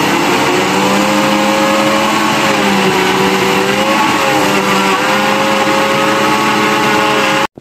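Countertop jug blender motor running steadily at high speed, blending ice cream and banana with a little milk into a milkshake; its pitch dips and recovers a little as it works, and it cuts off suddenly near the end.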